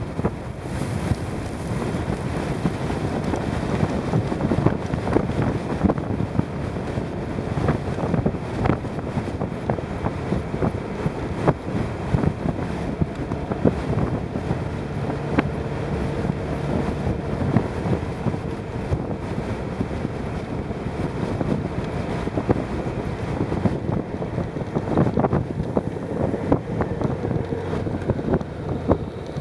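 Strong gusty wind buffeting the microphone of a moving motorcycle, an uneven rushing noise with constant small gusts, and the bike's engine humming faintly underneath.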